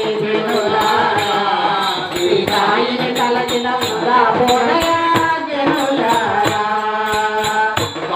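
Telugu devotional Sai bhajan sung by women into microphones, with a steady jingling percussion beat keeping time.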